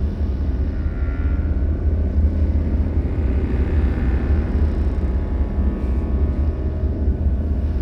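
Low, heavy rumbling drone of a horror ambience track, steady throughout, with faint higher tones that swell and fade over it a couple of times.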